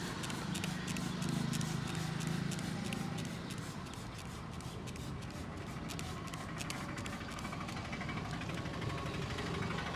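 Hands rubbing and tapping on a head during a massage, many quick irregular clicks and rustles that thin out in the last few seconds. Under them runs a steady low hum of street traffic.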